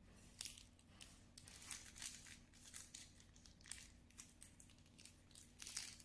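Faint, irregular crinkling and rustling of something being handled: a string of short, uneven crackles with a few louder ones.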